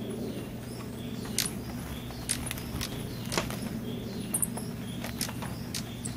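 Rain falling on forest foliage: a steady hiss with irregular heavy drops pattering and clicking on leaves, about one or two a second.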